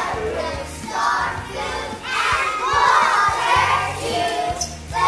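A group of young children singing together, loudly and a little ragged, over a recorded music backing track.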